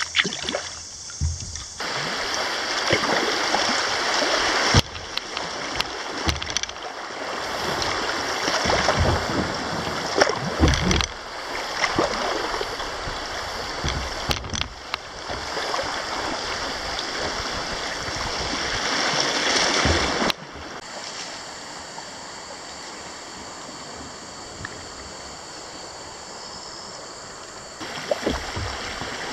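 Shallow river water rushing past a kayak through riffles, with scattered short splashes and knocks. The sound changes abruptly several times and is quieter for a stretch past the middle.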